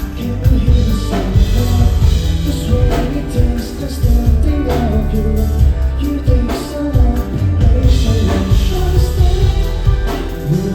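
Live band playing a pop song: drum kit, bass and other instruments with singing over them, a strong drum hit about every two seconds.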